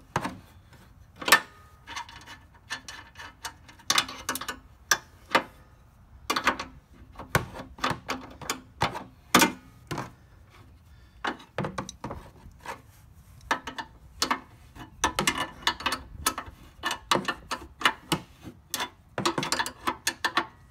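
Hand wrench clinking and clicking on steel bolts and the metal hitch bracket as the sprayer's mounting bolts are tightened: irregular sharp metallic clicks with short pauses between them.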